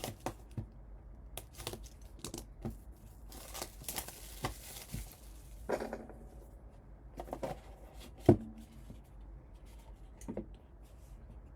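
A sealed trading-card box being opened and handled: wrapping tears and crinkles for about two seconds a few seconds in, among scattered clicks and rustles of cardboard and cards. A sharp knock comes about eight seconds in and is the loudest sound.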